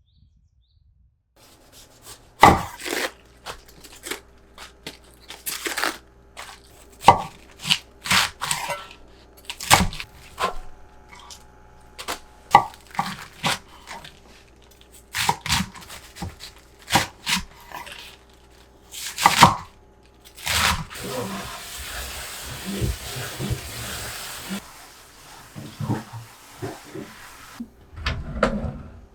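Kitchen work: objects being handled and set down on hard surfaces, with irregular knocks and clinks. A steady hiss runs for several seconds near the end.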